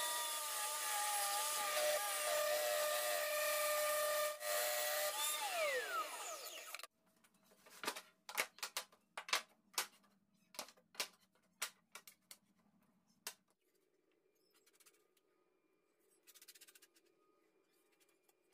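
Electric power saw running and cutting wood; the motor's whine dips and wavers under load. About six seconds in it is switched off and winds down with a falling pitch. A series of light knocks and clicks follows.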